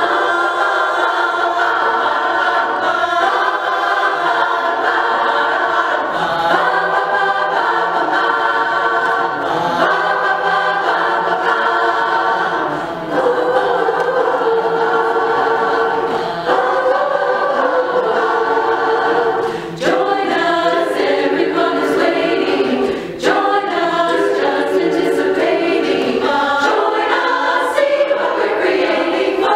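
Women's chorus singing an upbeat song a cappella in close harmony, with brief breaks between phrases.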